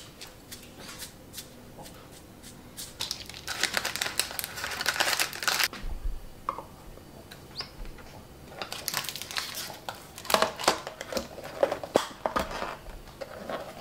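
Handling noises from packing a stainless-steel lunchbox. A plastic snack wrapper crinkles, and small lids and containers click against the steel tray, with two busy spells of clicking and rustling. Near the end the lid is pressed on and its clips snapped shut.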